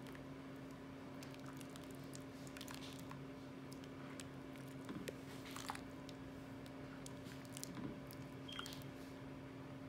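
A large spoon scooping and stirring thick dal in a metal pot: soft squelching with a few light clicks of the spoon against the pot. A steady low hum runs underneath.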